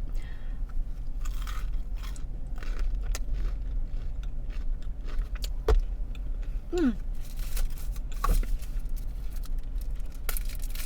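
Close-up chewing of a crunchy breaded chicken nugget, with scattered crunches and clicks over a steady low hum.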